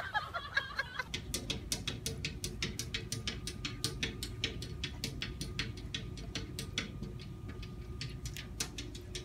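A cat swiping at a window pane, its paws tapping the glass in quick, slightly irregular taps, several a second.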